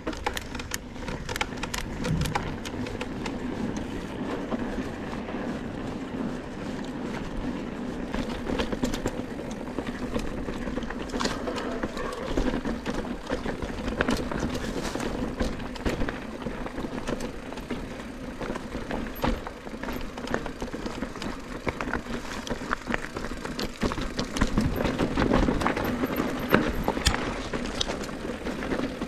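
Electric mountain bike riding over a rocky dirt trail: tyres crunching and rolling over stones under a steady rushing noise, with frequent sharp clicks and rattles from the bike hitting rocks.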